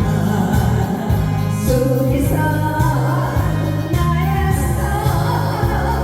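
Korean trot song in a polka arrangement: singing over a backing track with a bouncing bass line on a steady beat.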